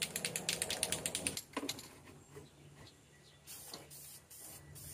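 Aerosol spray paint can (Ford blue engine paint) being shaken, its mixing ball rattling in rapid clicks for about a second and a half. About three and a half seconds in come short hisses of paint spraying.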